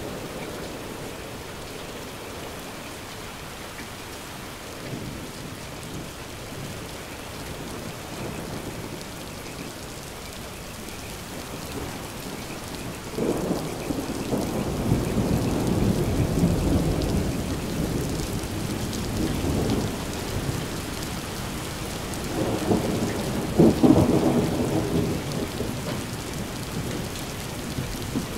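Steady rain falling. Thunder starts rumbling suddenly about halfway through, with a louder clap a little before the end.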